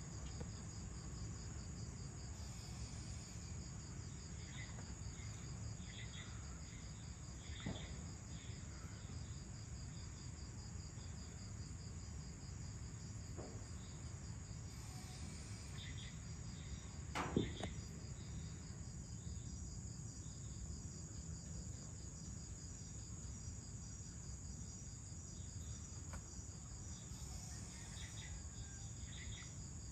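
Evening insect chorus, crickets by the sound of it: a continuous high-pitched trill with a faster pulsing trill just beneath it, over a low steady rumble. Short chirps come now and then, and a single sharp click sounds about 17 seconds in.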